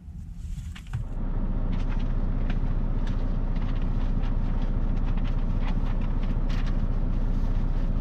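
A steady, loud, low mechanical hum in a semi-truck's cab comes on suddenly about a second in. Light paper rustling and crinkling sounds over it as the papers are handled.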